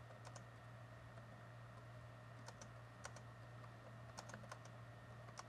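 Faint, irregular keystrokes on a laptop keyboard as a sentence is typed, over a steady low hum.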